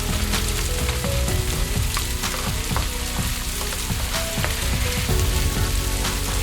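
Running water splashing and crackling over rocks, steady throughout.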